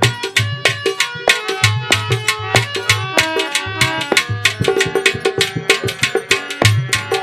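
Instrumental interlude of a devotional folk bhajan: a hand drum plays a fast, steady beat with deep bass strokes, under a melody instrument holding and changing notes.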